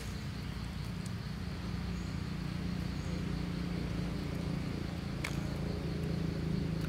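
Steady outdoor background: a low rumble with a faint, even high-pitched insect drone, and one sharp click about five seconds in.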